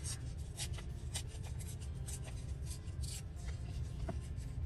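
Paper scraps being handled and laid in place: a run of short rustles and light taps, over a low steady hum.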